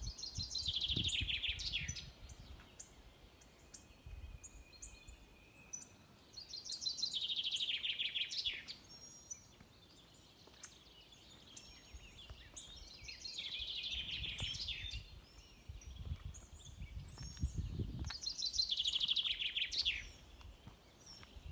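A songbird singing the same short song four times, every five to seven seconds: each song is a quick run of repeated notes that falls in pitch and lasts about two seconds.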